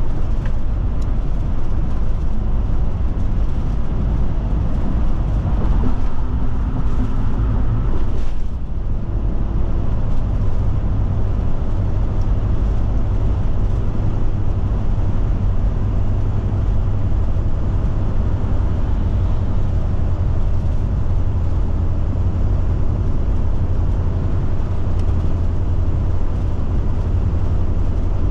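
Forest River Forester motorhome under way, heard from inside the cab: a steady low hum of engine and road noise. There is a short dip about eight seconds in. The driver says it is riding and driving well with the gauges all good.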